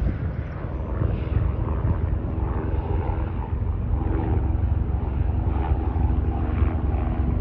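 Distant engine noise: a steady low rumble with a faint held drone.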